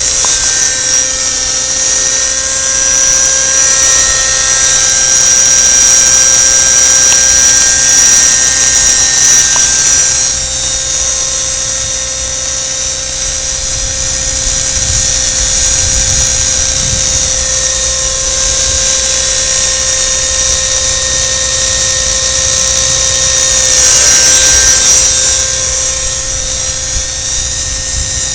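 Radio-controlled model helicopter in flight: its small engine and rotors give a high-pitched, steady whine. The whine gets louder twice, about a third of the way in and again near the end.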